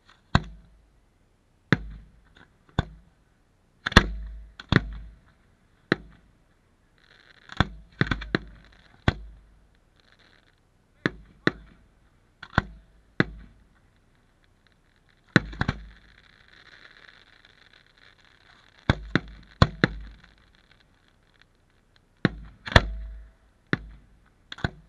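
Aerial fireworks shells bursting overhead: a string of sharp booms at uneven intervals, some in quick pairs, each trailing off in a short rumble, with a fainter hiss between bursts around the middle.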